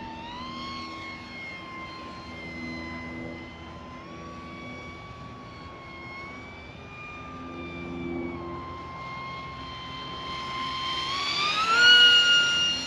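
Electric motor and propeller of a tiny sub-250 g RC plane whining in flight, the pitch shifting a little with throttle. Near the end the whine rises in pitch and gets much louder as the plane passes close.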